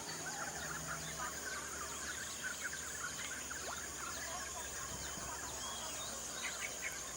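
Many birds chirping at once, short repeated calls, over a steady high-pitched buzz and a faint low hum.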